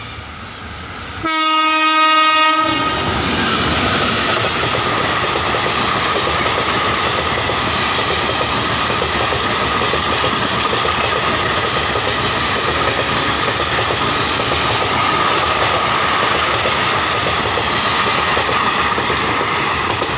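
Indian Railways passenger train passing at speed. The locomotive gives one steady horn blast of just over a second, about a second in, then the coaches' wheels keep up a loud, steady rush on the rails as the carriages go by.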